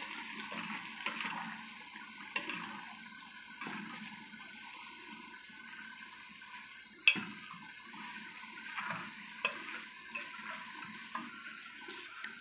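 Wooden spatula stirring rice noodles in a stone-coated pot: soft scraping and a scatter of light clicks and knocks of wood on the pot, over a faint steady hiss. A sharper knock about seven seconds in is the loudest sound, with another about two seconds later.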